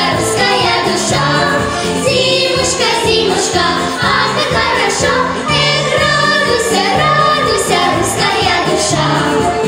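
Music of a children's winter song during an instrumental break between verses, with a steady bass line and melody, and children's singing voices at times.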